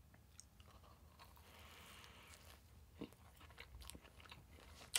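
Faint sounds of a person biting into a soft cinnamon-roll doughnut, with a few small mouth clicks and a sharper click near the end.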